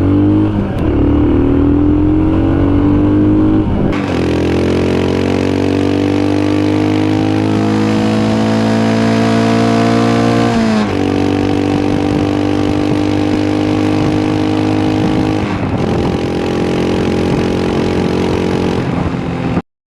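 Royal Enfield Himalayan's single-cylinder engine revved through a Red Rooster aftermarket exhaust with its dB killer fitted. After a short blip, the revs climb steadily for several seconds from about four seconds in, drop back sharply, are held again, fall once more, and the sound cuts off just before the end.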